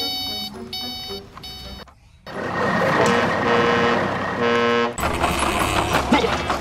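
Electronic toy sound effects: a repeating beeping tune, then after a short break near two seconds a simulated engine rumble with brief horn-like toots. About five seconds in it changes to a lower rumble with clicking.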